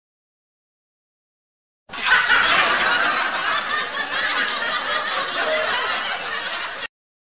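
A group of people laughing for about five seconds, starting about two seconds in after dead silence and cutting off abruptly near the end.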